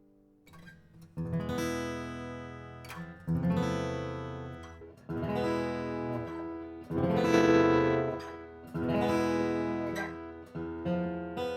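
Acoustic guitar strummed, one chord about every two seconds, each left to ring and fade. It comes in from near silence about a second in.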